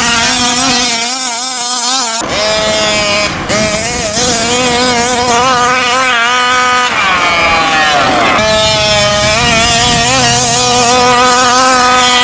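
A Taylor RC 46 GT big-bore two-stroke engine in a fifth-scale RC truck, running loud and being revved up and down as the truck is driven. The pitch climbs on the throttle and drops sharply off it, most plainly about two and eight seconds in.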